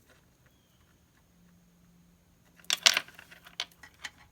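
Strands of tiger's eye stone beads clicking and rattling against each other as they are handled: a short clattering burst about two-thirds of the way in, then a couple of single clicks.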